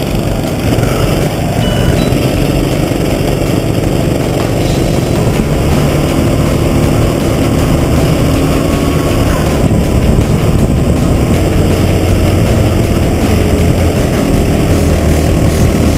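Go-kart engine running at racing speed, heard from on board over a dense rush of noise, its note rising and falling as the kart accelerates and slows through the corners. Other karts' engines run close by.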